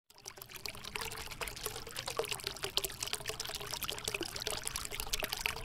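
Intro sound effect: a steady crackling, fizzing noise made of many small clicks, with a faint steady hum under it, starting suddenly.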